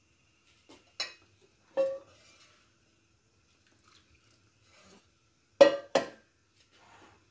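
Metal spoon clinking against a glass mixing bowl while stirring hot jaggery syrup into corn flour: a few scattered sharp clinks with a short ring, the loudest two in quick succession about five and a half seconds in.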